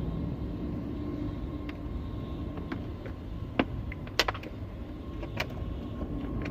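A few short, sharp plastic clicks and taps from handling a microphone cable and the car's interior pillar trim, two of them louder in the middle, over a steady low background rumble.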